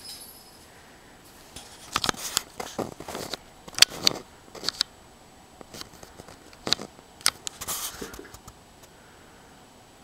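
Two kittens scuffling in play: irregular scratches, scrapes and light knocks from their paws and claws, coming in clusters from about two seconds in until near the end.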